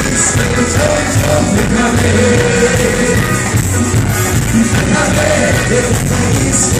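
Live cuarteto music: a band playing with a singer, loud and continuous.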